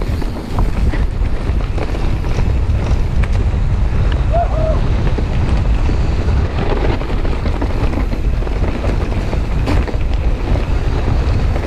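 Wind buffeting an action camera's microphone on a mountain bike riding fast down a dirt singletrack: a steady low rumble, with the tyres rolling over dirt and a few light knocks from the bike.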